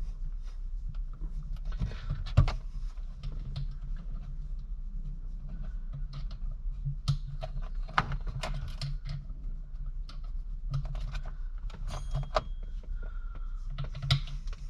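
Allen keys clicking and scraping against metal as the shifter's mounting bolts are turned by hand: many small irregular metal clicks, over a steady low hum.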